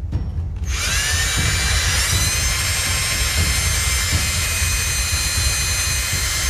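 Handheld power drill with an 1/8-inch bit boring into a painted wooden tray: the motor starts about 0.7 s in, its high whine rising in pitch as it spins up and again about a second later, then running steady.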